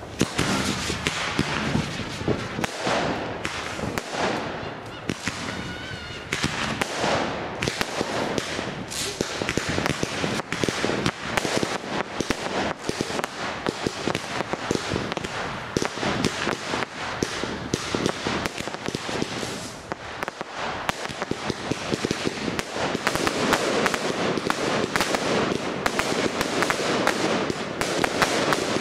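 Fireworks display: a dense, continuous run of crackling reports and bangs, with a brief wavering whistle about six seconds in. It gets busier over the last few seconds.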